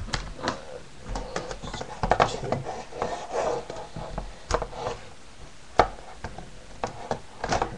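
DVD cases and their packaging being handled: scattered plastic clicks and rustling, with sharp clacks about four and a half seconds in, about six seconds in, and near the end.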